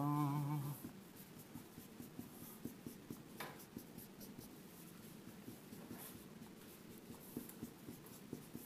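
Dry-erase marker writing on a whiteboard: a run of light, short strokes and taps as letters are written in columns, one stroke standing out a little past three seconds in. A brief hum from a man's voice comes first.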